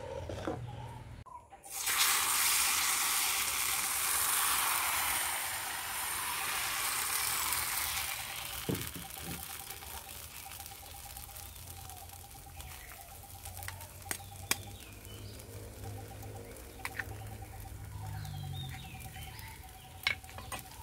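Hopper batter sizzling in a hot hopper pan (appachatti) over a wood fire. A loud sizzle starts suddenly about two seconds in and eases to a softer, steady sizzle, with a few sharp clicks later on.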